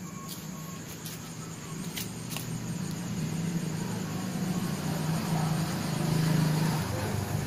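A low engine rumble from a motor vehicle grows louder and peaks about six seconds in, with a few faint clicks in the first couple of seconds.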